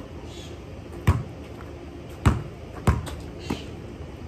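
A basketball bouncing hard on a concrete driveway: three sharp thuds at uneven spacing, about a second apart, and a softer one just after.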